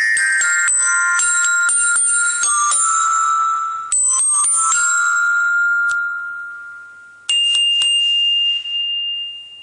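Marching glockenspiel's metal bars struck with a mallet: a quick run of bright bell-like notes, then notes left ringing and slowly fading. About seven seconds in, a last loud strike leaves one high note ringing out and dying away.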